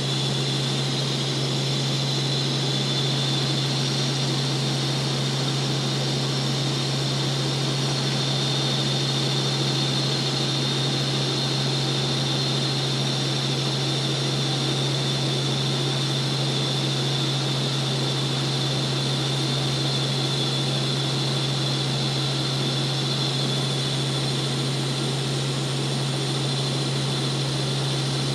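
Helicopter cabin noise in steady cruise flight: a constant low drone with a steady high whine over a broad rushing noise, unchanging throughout.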